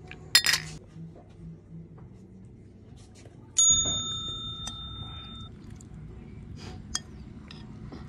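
Two drinking glasses clinking together in a toast. About three and a half seconds in comes a bright ringing ding that fades over about two seconds, followed by a few light taps of a metal spoon against a ceramic soup bowl.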